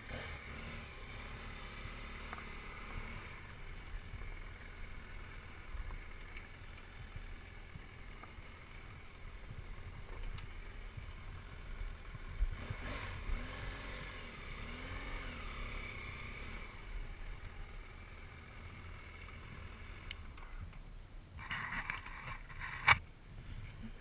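BMW F800GS motorcycle running at low speed over loose gravel, with a steady low rumble of engine and wind on the microphone. A sharp knock comes near the end.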